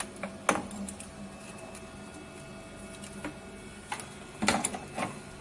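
A few sharp clicks and knocks of cable plugs being pushed into the sockets on a beauty machine's connector panel, the loudest cluster about four and a half seconds in, over a faint steady hum.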